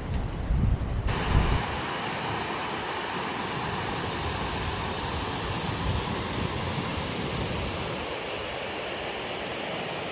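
Wind buffeting the microphone for about a second, then a steady rush of flowing water, like a fast mountain stream or waterfall.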